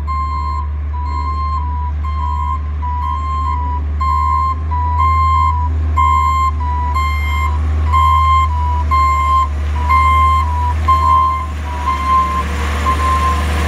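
Garbage truck reversing: its back-up alarm beeps at a steady, even pace over the low rumble of the engine. Near the end the engine noise grows louder as the truck comes close.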